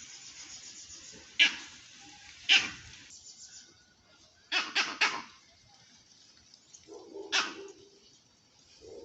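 A dog barking: two single sharp barks, a quick run of three, then one more.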